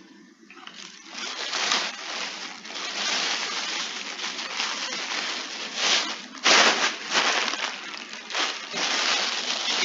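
Irregular rustling and crinkling of packaging as medicine is wrapped up, with louder bursts about six and a half and nine and a half seconds in.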